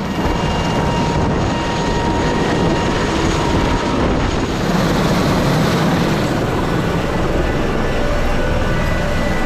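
Twin-engine rescue helicopter running on the ground with its rotor turning: a steady, loud rush of rotor and turbine noise with a faint high whine.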